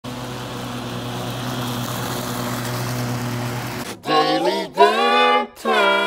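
Gas backpack leaf blower running steadily: an engine hum under a rush of air. About four seconds in it cuts off abruptly, and a short melodic intro of sliding, then held, pitched notes begins.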